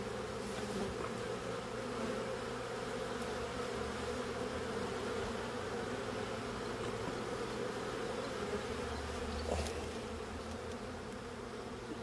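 Many honey bees buzzing together in a steady, continuous hum from an opened hive box.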